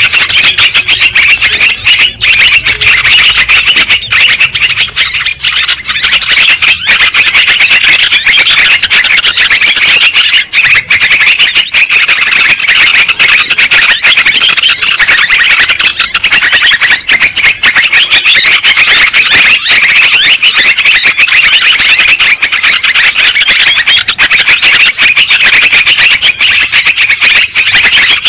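Bird-lure recording of yellow-vented bulbuls (trucukan) calling: a loud, dense, unbroken chorus of rapid chattering calls, played to draw the birds in to a trap.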